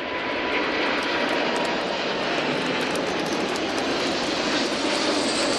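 Boeing 747-8F freighter's four GEnx turbofan engines at takeoff power as the jet climbs away just after liftoff: steady, loud jet noise, with a faint whine that fades in the first second or two.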